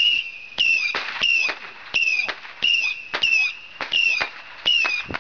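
Ground firework repeatedly firing whistling shots, about two a second. Each shot is a sharp pop followed by a short, high whistle that falls slightly in pitch.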